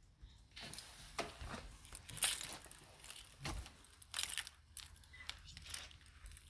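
Handling noise from the phone filming: irregular rustles and scrapes as the phone is moved about and brushed against, in short bursts, the loudest a little past two seconds in.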